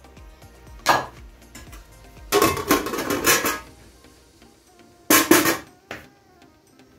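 Wooden spoon knocking on the rim of a metal cooking pot, then a longer clatter of the metal lid being set on, and a last clatter as the spoon is laid on the lid. Soft background music runs underneath.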